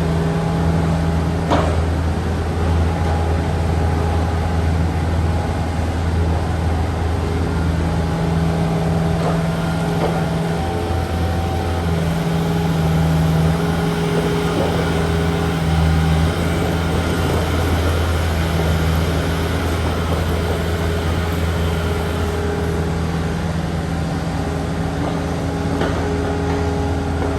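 Takeuchi TB153FR compact excavator's diesel engine running steadily under working load while digging, its pitch dipping and recovering now and then as the hydraulics take up load. Two sharp knocks sound, one early and one near the end.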